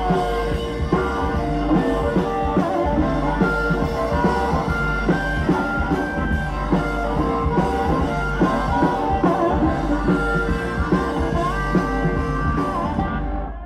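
Live rock and roll band playing loud: electric guitar, upright bass and drum kit, with held high notes over a driving beat. The song ends and the music drops away near the end.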